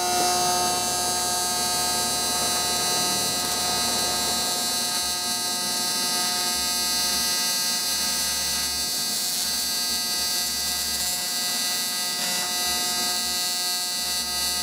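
AC TIG welding arc on cast aluminum: one unbroken, steady buzz pitched by the machine's 175 Hz AC frequency.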